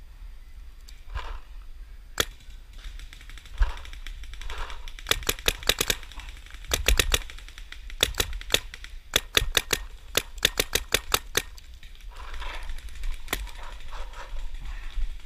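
Paintball markers firing: a single shot, then several quick strings of shots from about five to eleven seconds in, then another single shot.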